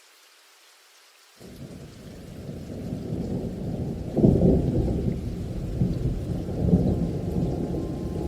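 Thunderstorm sound: a low rumble of thunder comes in about a second and a half in, swells to its loudest about four seconds in and rolls on over the hiss of rain.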